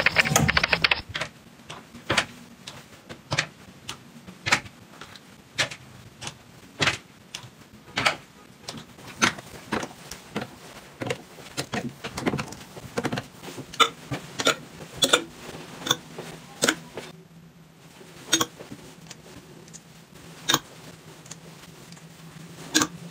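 Clothes hangers clicking onto a metal closet rail one after another, about once a second, with soft fabric rustling as clothes are hung up, over a faint low hum.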